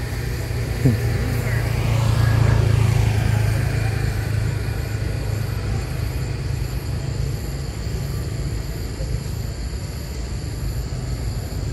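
A motor vehicle's engine rumbles past: a broad swell builds about two seconds in and slowly fades, over a steady low engine drone. There is one short click near the start.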